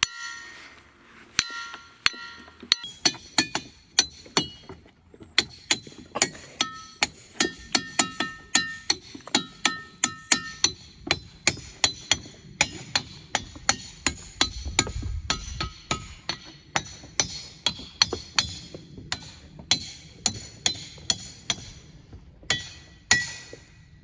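A steel hammer striking olivine diabase boulders (ringing rocks) over and over, about two blows a second. Many blows leave a clear bell-like ring at several pitches, and others land dull.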